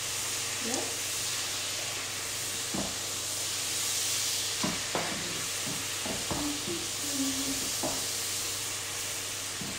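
Beef and spices frying in oil in a pan, a steady sizzle, with a utensil stirring and knocking against the pan now and then.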